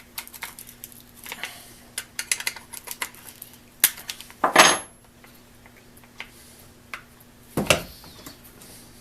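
A steel wrench clicking and clinking on the small terminal nuts of a soldering gun as they are tightened, with a louder metallic clatter about four and a half seconds in and another near the end.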